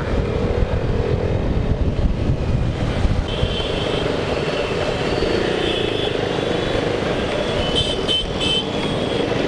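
Riding noise from a motorcycle on the move in traffic: engine and wind on the microphone make a steady rumble. A thin high tone from another vehicle comes in about three seconds in and fades near the end.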